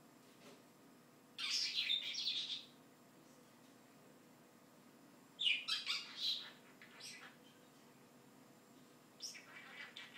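Pet bird calling in three short bursts of high-pitched chatter, about a second and a half in, around five and a half seconds in, and near the end.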